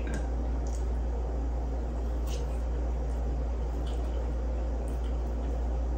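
A steady low background hum fills the room, with a few faint, short clicks from eating with a fork at a plate of food.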